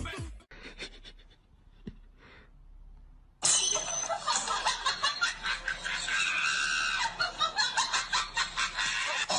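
After a quiet gap, a person laughing hard in quick repeated bursts starts about three and a half seconds in and goes on.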